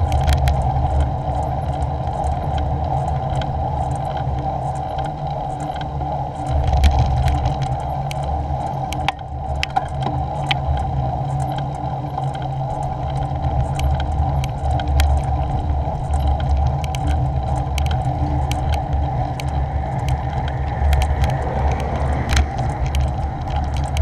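Steady riding noise picked up by a bicycle-mounted action camera: wind buffeting the microphone with a deep rumble, and tyre noise on the tarmac. Frequent small clicks and rattles come from the bike over the rough, patched road surface.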